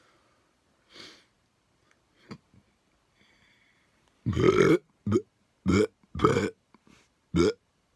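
A person burping five times in quick succession, starting a little past halfway, the first burp the longest.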